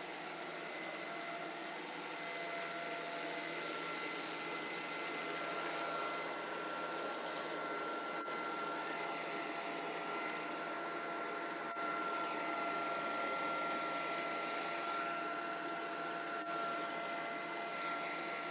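iCLEBO Omega robot vacuum cleaner running: a steady whirr from its motor with a constant whine running through it.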